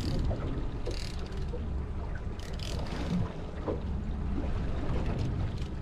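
Steady low rumble of a small fishing boat's engine running at idle on open water, with a few short hissing bursts about a second in and again around halfway.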